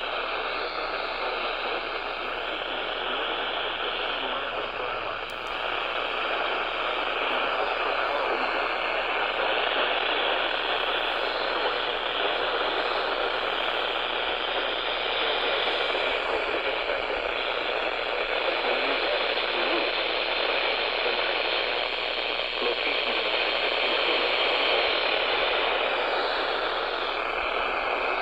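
Steady hiss of radio static from a receiver tuned to a weak broadcast signal, with a faint steady tone running through it.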